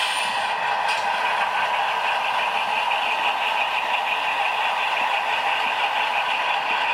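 Diesel engine sound played through the small speaker of a sound-equipped model diesel locomotive, running steadily with an even fast pulse as the locomotive rolls along the track.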